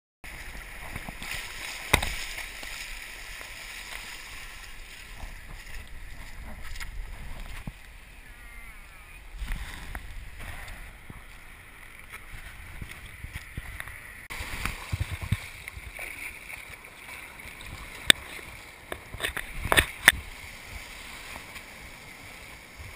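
Surf washing up the beach with wind on the microphone, and a few sharp knocks.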